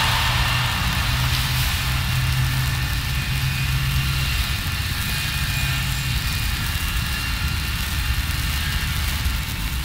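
Steady low mechanical rumble from an industrial plant, with a hum that fades out about six seconds in, under a hiss of rain.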